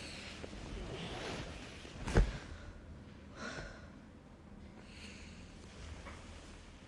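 Faint breathy human sounds, like gasps and breaths, with one sharp thump about two seconds in.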